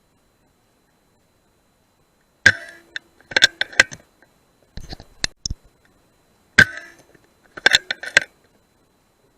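Two sharp shots from a rat-shooting rifle, each with a short ringing tail, and each followed within a second by a quick run of metallic clicks.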